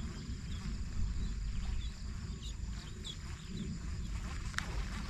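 Scattered short chirping calls of small animals over a steady faint high whine, with wind rumbling on the microphone. One sharp click comes near the end.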